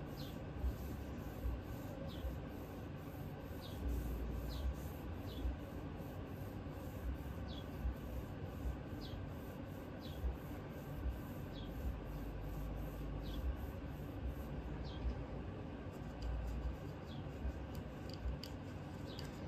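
A pad rubbed back and forth over the steel receiver of a Remington 1100 shotgun, working in cold gun-bluing solution. A short faint squeak comes with each stroke, about once a second.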